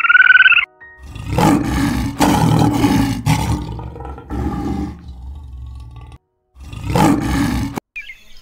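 A brief, loud, high warbling sound opens, then a lion roars: a long, deep roar from about a second in that trails off, then after a short gap one more roar that cuts off abruptly near the end.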